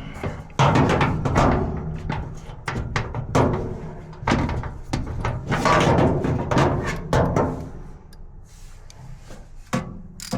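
Irregular knocks and clunks of dryer panels and parts being handled, several a second at times, thinning out after about eight seconds.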